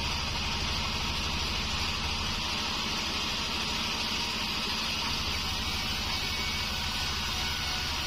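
Band sawmill running steadily, its blade sawing lengthwise through a wadang (bayur) wood board, a dense hiss of cutting over the machine's low, even hum.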